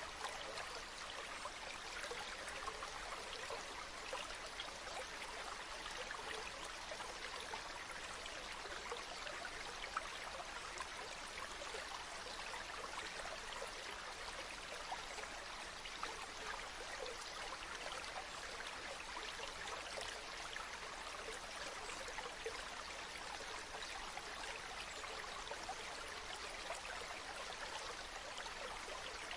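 Water flowing and trickling in a small stream, a steady babbling hiss with fine splashy flecks throughout.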